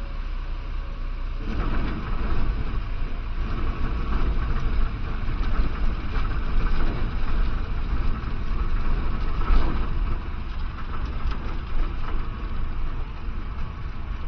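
Cessna 150's Continental O-200 four-cylinder engine running, heard from inside the cabin, with a rumbling rattle as the wheels roll over the grass airstrip. The noise grows louder about a second and a half in, with a brief louder bump about nine and a half seconds in.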